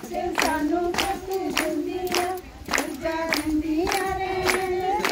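A group of women singing a Punjabi folk song in unison, with steady hand clapping about two to three claps a second, the traditional singing of a Jago procession.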